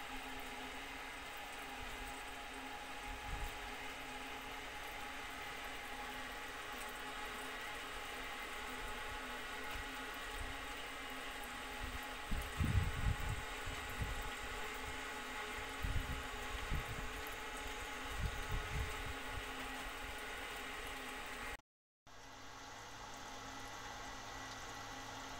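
Twin-fan aquarium cooling unit running on a goldfish tank: a steady mechanical hum, described as very loud, mixed with water sound from the tank's filter. A few low bumps come partway through, and the sound cuts out for a moment near the end before the hum resumes.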